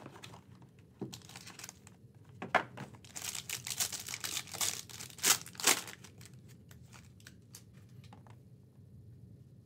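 Foil wrapper of a trading card pack crinkling and tearing as it is opened by hand, with a few sharp crackles in the middle. The crinkling stops after about six seconds, leaving only faint handling clicks.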